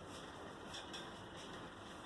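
Faint rustling of hands rubbing hair and scalp during a head massage, a few soft brushing strokes over a steady background hiss.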